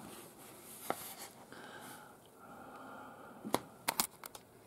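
Paper being handled: a soft rustle as the pages of a manual are moved, with a few short sharp clicks or crackles, one about a second in and a quick cluster near the end.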